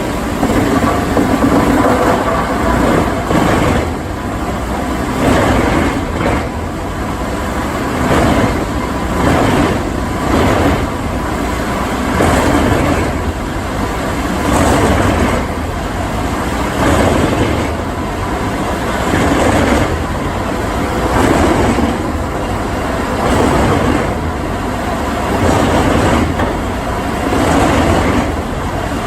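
Heavy wood chipper running under load, its engine droning steadily while the cutter chews through wood in loud surges about every one and a half to two seconds.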